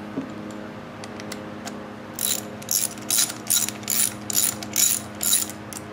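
Hand socket ratchet clicking in short strokes, about two a second, from about two seconds in, after a few faint ticks. It is loosening the connecting-rod bolts inside a Briggs & Stratton cast-iron engine's crankcase.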